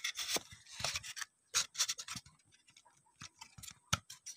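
Homemade fish stunner being tested, its contact points ('platino') firing in irregular sharp crackles and snaps. It is running, but only weakly.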